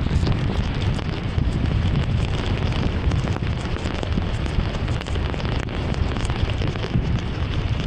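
Heavy rain pelting a moving car, individual drops ticking sharply over a steady hiss, under a constant low rumble of tyres on the wet road.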